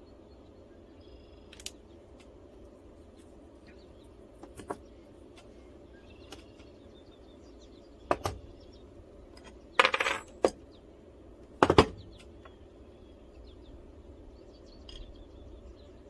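Metal hand tools clinking and knocking as they are handled and set down on a plywood workbench: a few sharp strikes between about eight and twelve seconds in, the loudest two close together near the end of that stretch.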